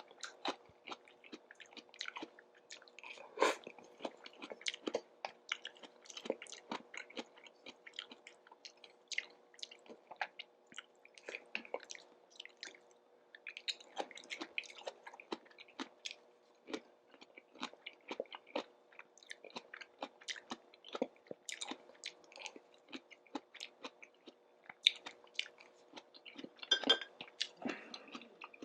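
Close-miked chewing of food: a dense, irregular run of small wet mouth clicks and smacks, several a second, with the odd louder bite.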